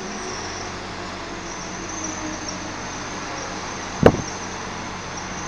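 Steady road traffic, cars passing on a wet road, with a single sharp knock about four seconds in.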